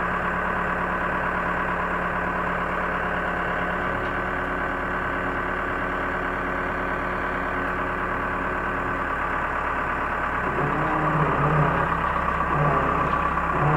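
Backhoe engine running steadily; about ten seconds in its note shifts and it gets a little louder.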